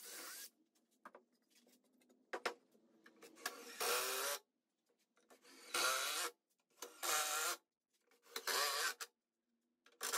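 Cordless drill running in about six short bursts, each under a second, pre-drilling holes and driving 3-inch Spax screws into pressure-treated lumber. A few light clicks of handling come between the bursts.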